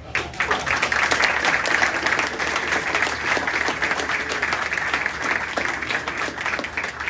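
Audience applauding: many people clapping together, starting at once and keeping up steadily.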